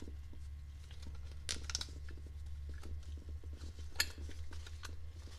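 Light handling noises as a paper gasket is fitted onto a metal transmission front cover: soft rustling and small metallic clicks, with a couple of sharper ticks, over a steady low hum.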